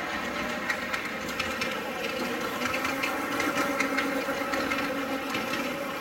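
Small ride-on miniature railway locomotives running on track, with a steady motor hum that swells around the middle as one passes close, over a busy hall's background din and scattered faint clicks.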